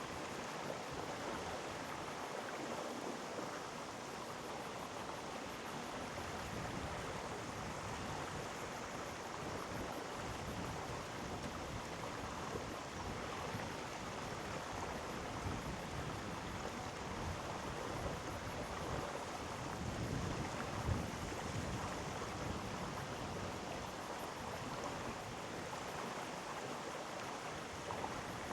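Gorge stream water rushing steadily over rocks, with a brief low rumble about two-thirds of the way through.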